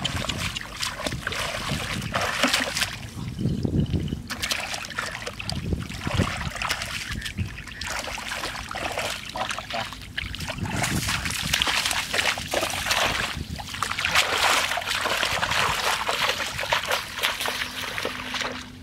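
Shallow, muddy paddy water splashing and sloshing in irregular bursts as hands sweep and grope through it.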